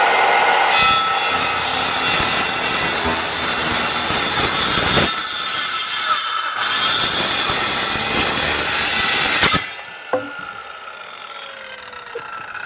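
Electric power saw cutting wood for about nine and a half seconds, then switched off, its blade winding down with a faint falling whine.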